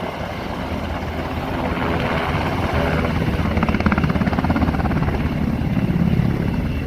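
Helicopter rotor beating in a fast, steady rhythm, a little louder in the middle, as the helicopter takes on water.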